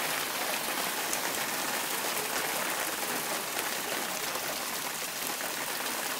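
Hailstones falling steadily on a patio and a glass tabletop: a dense, even hiss of many small hits.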